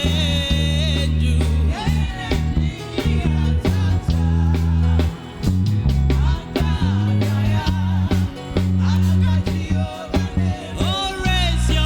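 Live gospel worship music: a band with a steady bass, drums and guitar, and voices singing, most clearly near the start and again near the end.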